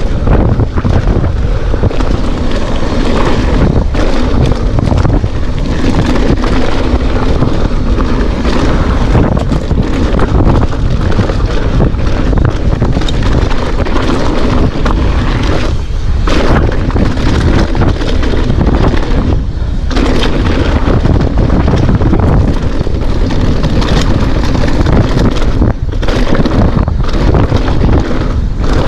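Heavy wind buffeting the microphone on a fast mountain-bike descent, with the tyres crunching over loose rocky gravel and the bike clattering on the bumps.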